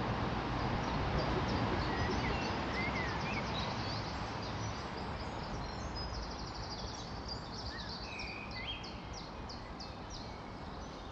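Small birds chirping and trilling, busiest past the middle, over a steady low background rumble and hiss.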